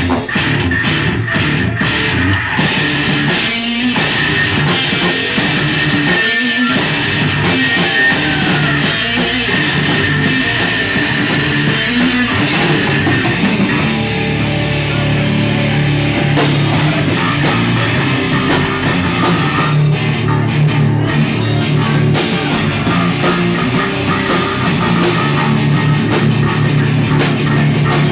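Live rock band playing: electric guitars and a drum kit, loud and steady.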